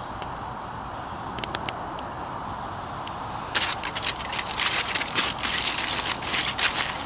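Wood fire crackling in a small portable wood-burning camp stove, with scattered sharp pops, then a run of denser, louder crackling from about three and a half seconds in.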